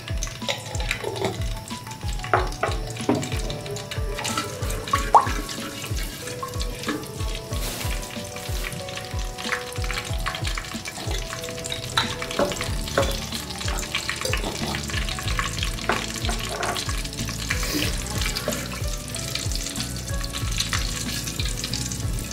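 Whole cumin seeds, cloves and black peppercorns sizzling and crackling in hot oil in an aluminium pressure cooker, stirred with a wooden spatula.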